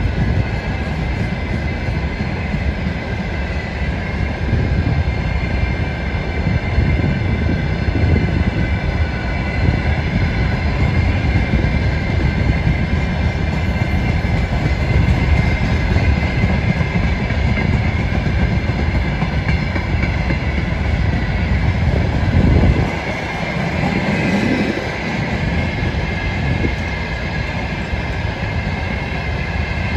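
Freight train of covered hopper wagons rolling past close by: a steady rumble and clatter of wheels on the rails, with steady high ringing tones over it. The rumble drops off suddenly a little after two-thirds of the way through, then carries on slightly quieter.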